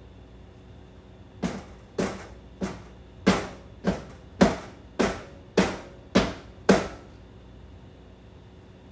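A baking pan filled with cake batter tapped down ten times, about two knocks a second, to knock air bubbles out of the batter.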